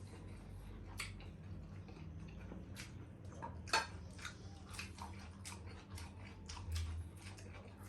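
Close-up eating sounds: a person chewing saucy spare ribs, with wet mouth smacks and clicks at an irregular pace, the sharpest a little under four seconds in. A faint steady low hum runs underneath.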